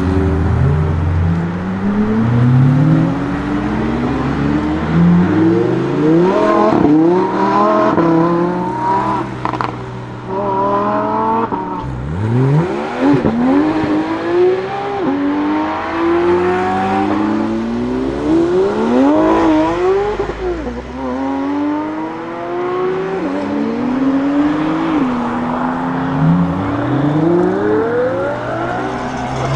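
Lamborghini Huracán STO's naturally aspirated V10 under hard acceleration on track, its pitch climbing through each gear and dropping sharply at each upshift, over and over.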